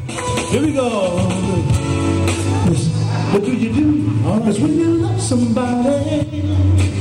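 An amplified male vocal group singing a soul/R&B number. A lead voice slides through long, wordless held notes over instrumental backing with a steady, heavy bass.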